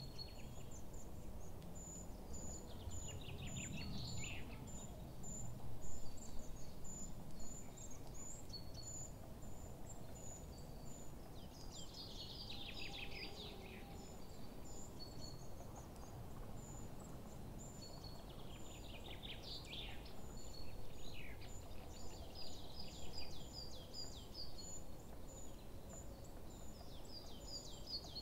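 Outdoor nature ambience: a steady run of short, high chirps like insects, with a bird's descending trill coming back about every eight seconds.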